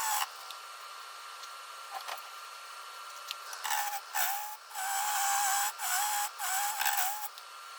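Wood lathe spinning a segmented walnut bowl under a steady faint whine, quiet for the first few seconds, then a turning tool cutting the wood in about five short passes in the second half, each a rasping cut with a wavering tone.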